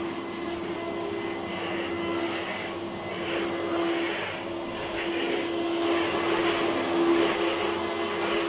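1998 Electrolux Power System Z1740 upright vacuum cleaner running, a steady motor hum over rushing air that swells and eases about once a second.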